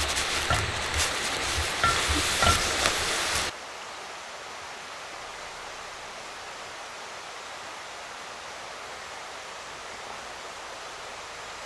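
Leftover meat sizzling in a frying pan, with a few sharp clicks of utensils against the pan. It cuts off suddenly about three and a half seconds in, leaving the steady, even rush of a mountain stream.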